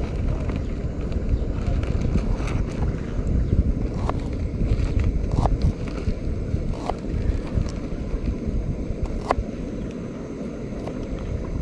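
Wind buffeting the microphone outdoors, a steady low rumble, with a few brief sharp high squeaks or ticks scattered through it.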